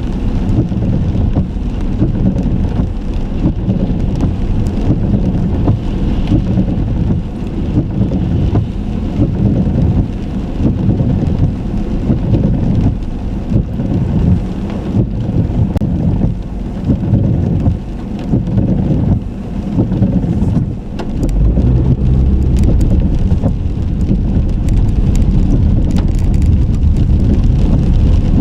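A car on the move, picked up by a car-mounted camera: a loud, uneven low rumble of driving noise. About three quarters of the way through, it settles into a steadier low drone.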